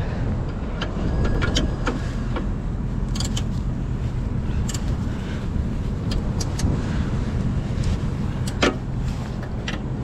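Hand wrench working on the steel motor-mount bolts of an exhaust fan as they are tightened: a few scattered sharp metallic clicks and clinks over a steady low rumble.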